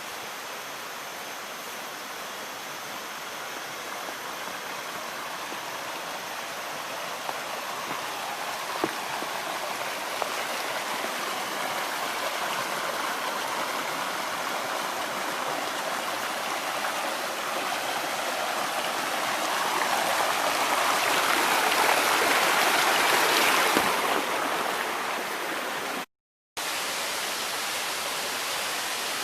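Waterfall rushing, a steady hiss of falling water that grows louder about two-thirds of the way through, breaks off for a split second near the end, then carries on.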